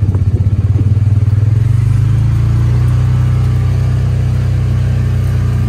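Side-by-side utility vehicle's engine running while driving. It starts as a low pulsing chug and smooths into a steady hum about two seconds in.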